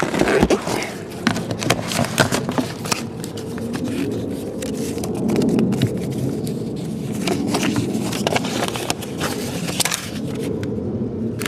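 Close handling noise: packaging rustling and scraping with many irregular clicks and crackles as something is pulled out by hand.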